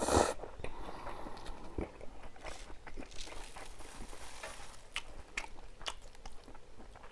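Close-up eating sounds: a person biting and chewing food, with a louder noise right at the start and then many small clicks of chewing.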